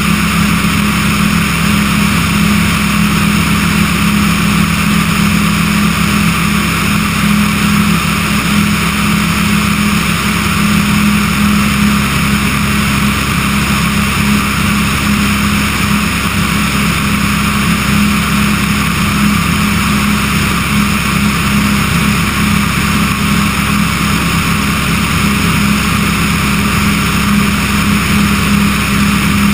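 Remos G3/600 light sport aircraft's engine and propeller droning steadily in cruise flight, heard from outside the cabin with a strong steady hum and no change in pitch.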